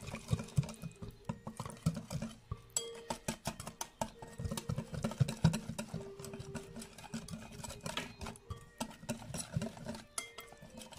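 Fork whisking a thick marinade in a glass bowl: rapid, irregular clicks and taps of the metal tines against the glass, with wet mixing of the paste.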